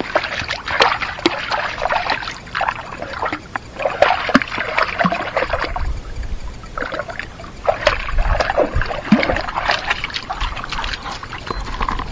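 A dog wading and splashing through a shallow, rocky creek, with the stream trickling over stones. The splashing comes in bursts with short lulls.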